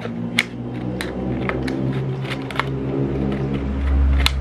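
A handful of sharp plastic clicks from a small utility knife cutting a strip from a PET water bottle, over a steady low hum that grows louder near the end.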